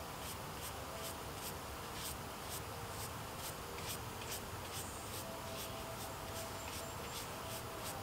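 A mushroom brush scrubbing a porcini to clean dirt off it, in short repeated strokes about two or three a second.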